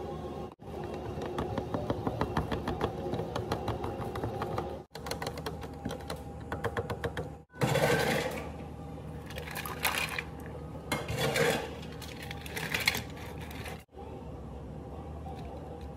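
Iced latte being made at a cafe counter in short cuts. First comes a fast, steady run of small clicks and rattles. Then several loud clattering bursts as ice cubes drop into a plastic cup.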